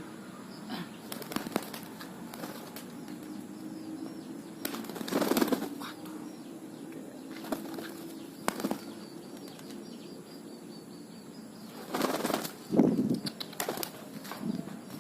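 Pigeons' wings flapping in two loud bursts, about five seconds in and again about twelve seconds in, with scattered sharp clicks in between.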